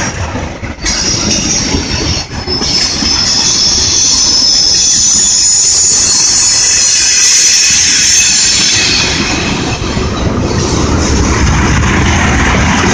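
Freight train of tank cars rolling past close by, steel wheels running on the rails. A high-pitched squeal from the wheels is loudest through the middle.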